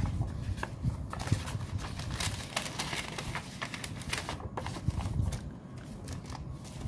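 Paper envelopes rustling and sliding as they are picked up and shuffled on a tabletop, with scattered light taps and clicks.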